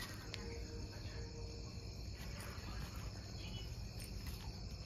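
Faint, steady chirping of crickets, with a few faint clicks.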